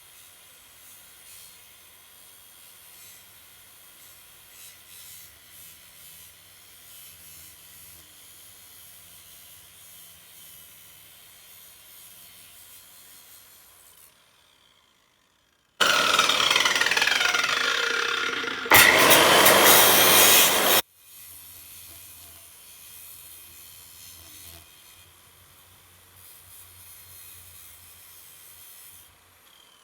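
APT 9-inch angle grinder cutting through scrap metal, a steady grinding noise. About halfway through it breaks off briefly, then comes back much louder for about five seconds, with a whine falling in pitch, before dropping back to the earlier level.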